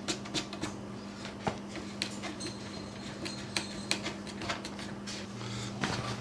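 Scattered light clicks and taps of hands handling a rifle stock and its Kydex cheek piece with adjustment knobs, over a steady low hum.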